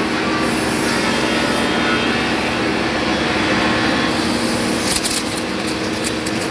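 A sawmill woodworking machine cutting a sonokeling (Indonesian rosewood) board as it feeds through: a steady machine hum under the noise of the cut, with a short burst of clicks about five seconds in.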